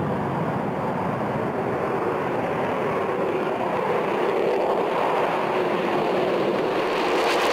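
Twin Pratt & Whitney F119 turbofan engines of an F-22 Raptor at takeoff power as the jet rolls and lifts off: a steady jet roar that grows slightly louder and brighter near the end.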